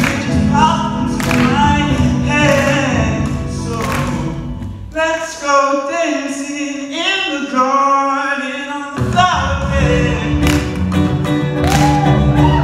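Male voice singing a song to his own electric guitar played through a small Fender combo amplifier. About five seconds in, the guitar's low accompaniment drops out for roughly three seconds while the singing carries on, then the guitar comes back in.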